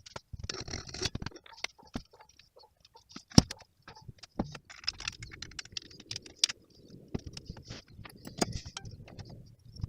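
Handling and work noise on an old bird feeder being restored: a string of irregular clicks, taps and rustles, with one sharp knock about three and a half seconds in.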